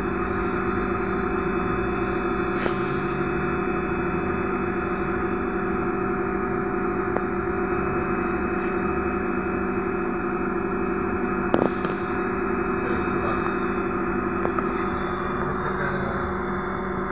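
Inside a BKM 321 trolleybus standing still: a steady hum of several tones from its onboard electrical equipment over a low rumble, with a single short knock about eleven and a half seconds in.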